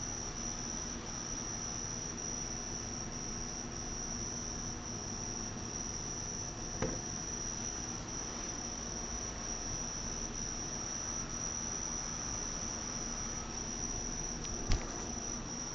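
An insect trilling steadily at one high pitch, with a faint knock about seven seconds in and a sharper tap near the end.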